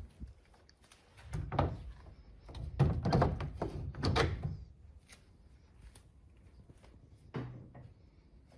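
Thuds and clattering knocks of hard objects being handled: a burst about a second and a half in, a louder run of knocks from about three to four and a half seconds in, and a single knock near the end.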